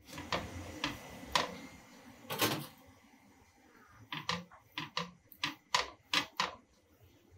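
A knife cutting a pan-toasted burger bun held down with a fork: a series of short crisp clicks and scrapes from the toasted crust and the cutlery, coming quicker in the second half.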